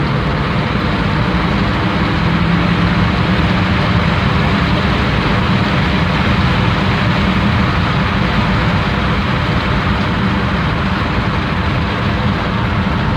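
2002 VW Beetle Turbo's 1.8T turbocharged four-cylinder engine running under way together with loud road and wind noise at speed, a steady drone without a clear rise in pitch.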